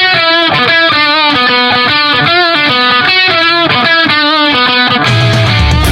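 Background music led by a distorted electric guitar playing a run of notes with vibrato, with heavy bass and drums coming in about five seconds in.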